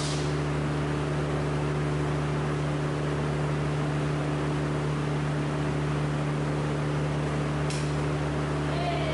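Steady low machine hum with several constant tones, from idling arc-welding machines and a wall exhaust fan. A short hiss comes about three quarters of the way through.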